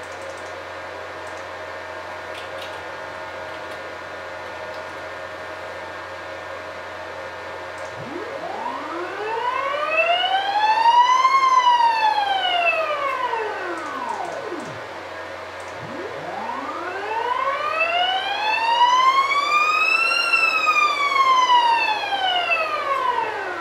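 NEMA 34 closed-loop stepper motor making two long jog moves. Each time its whine climbs smoothly in pitch as the motor accelerates, peaks, then falls away as it decelerates to a stop: once starting about eight seconds in, and again, slightly longer, from about sixteen seconds in. A steady hum runs underneath while the motor is still.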